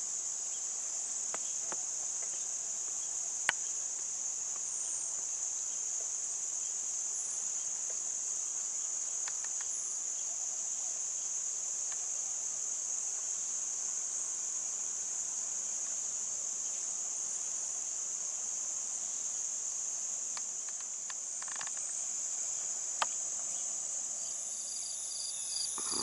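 Steady, high-pitched chorus of field insects, continuous and even throughout. Two brief sharp clicks, one a few seconds in and one near the end.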